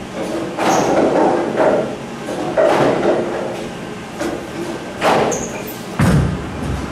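Hammer Dark Web bowling ball released onto the lane about six seconds in, hitting the wood with a thud and then rolling with a low rumble. Before the release there are several sharp knocks and clatters, about one a second at first.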